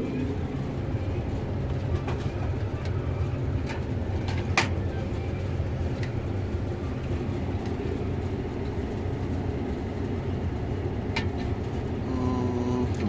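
A car running: a steady low rumble with a few light clicks and taps.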